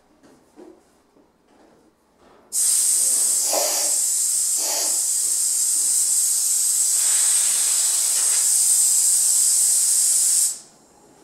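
Compressed air rushing through a drywall texture hopper gun: a loud, steady hiss that starts abruptly about two and a half seconds in and cuts off sharply about eight seconds later.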